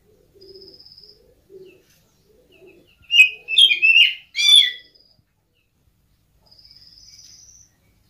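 Oriental magpie-robin (kacer) calling from its cage: a loud burst of sharp, sliding chirps lasting about two seconds in the middle.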